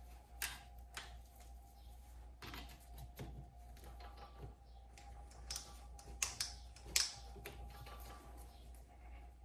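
Scattered light clicks and knocks of metal parts and hand tools being handled, with sharper knocks about six and seven seconds in, over a faint steady hum.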